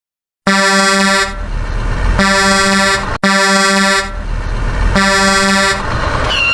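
A horn sounding four loud blasts, each a steady buzzy tone lasting under a second, with a rumbling noise between the blasts.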